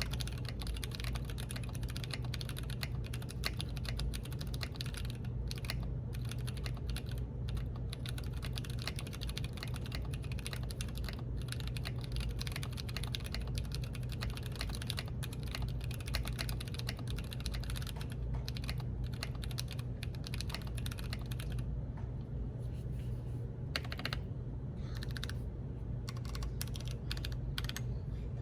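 Mechanical keyboard with stock Kiwi tactile switches and Portico keycaps being typed on fast and continuously, the keystrokes thinning to scattered presses near the end. The stabilizers are stock C3 Equalz lubed with Krytox 205 G0.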